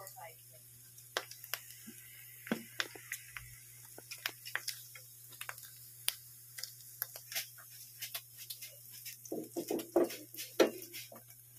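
Scattered sharp pops and crackles of pork belly fat spitting in a frying pan. Near the end come a cluster of clatters and two louder knocks as a stainless steel pan is handled over the stove.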